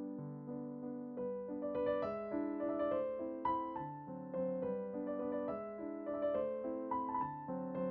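Background piano music: soft sustained chords, with a melody of higher, quicker notes joining about a second and a half in.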